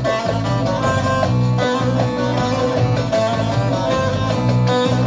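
Instrumental music led by plucked strings over a steady bass line: the introduction before the singing begins.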